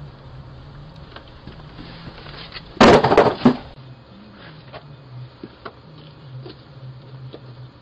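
A cardboard delivery box containing a hard drive dropped hard onto the doorstep close to the doorbell camera's microphone: a loud, short crash of several quick knocks about three seconds in, handled with no care.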